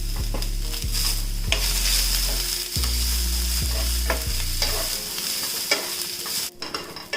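Garlic, ginger, green chilli and coriander leaves frying in a little oil, sizzling while a spoon stirs and clicks against the pan. A low hum underneath fades out about five seconds in.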